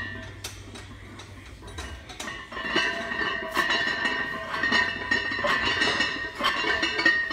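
Loaded barbell clinking and grinding metal-on-metal as it is rowed, a clanking pulse with each pull, roughly once a second, getting louder a couple of seconds in.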